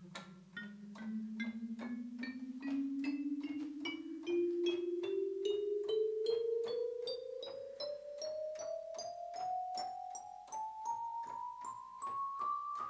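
Commodore Sound Expander's FM synthesizer chip (a Yamaha YM3526) playing a rising chromatic scale, one key at a time, about two and a half notes a second. Each short note starts sharply and fades, the pitch climbing steadily.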